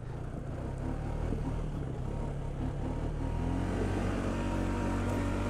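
Polaris Sportsman 570 ATV's single-cylinder engine running as the machine is ridden, its pitch climbing a little toward the end as it speeds up.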